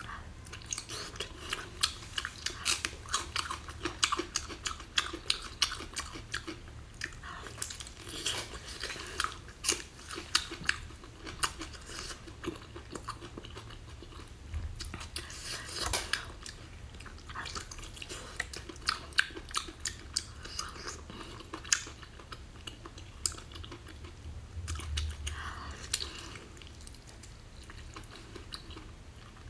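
Close mouth sounds of biting and chewing a whole octopus with its ink-filled head. A dense run of sharp clicks and smacks goes on throughout, thinning for a moment now and then.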